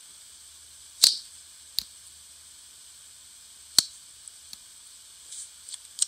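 Sharp metallic clicks from handling an all-metal back-lock folding knife: three loud ones, about a second in, near two seconds and near four seconds, with a few fainter ticks between, over a faint steady hiss.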